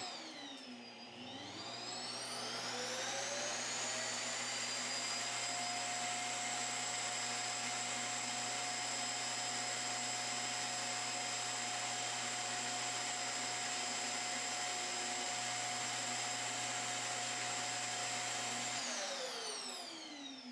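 Lydsto H4 cordless vacuum's motor running: it starts, rises to full speed over the first few seconds with a climbing whine, holds a steady high whine and rush of air, then winds down and stops near the end.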